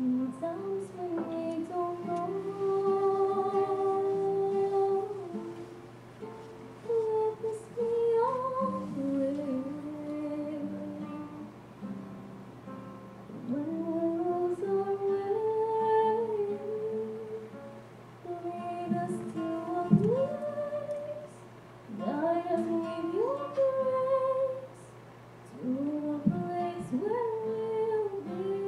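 A woman singing a melody of long held notes into a microphone, accompanied by a plucked acoustic guitar.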